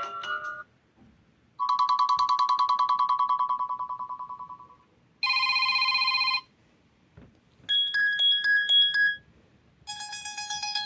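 Sony Xperia XA phone's built-in ringtones and alert tones played one after another, each a short electronic tone with a gap between. A melody ends, then come a trilling tone that fades out, a brief steady chord, and rapid beeps alternating between two pitches. A new tone starts near the end.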